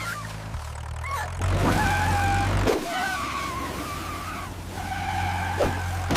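A vehicle engine running, its low hum stepping up twice and then dropping off sharply near the middle, with high squealing tones like skidding over it.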